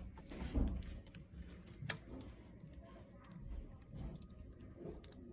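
Scattered light clicks and taps of hands handling a laptop's internal plastic parts and a small cable connector, with one sharper click about two seconds in.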